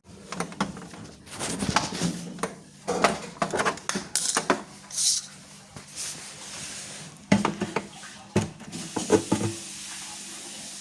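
Irregular clattering, knocks and scrapes of hand tools and plastic and metal parts being handled while a solenoid valve is fitted into a dishwasher, with a short hissy scrape about halfway through.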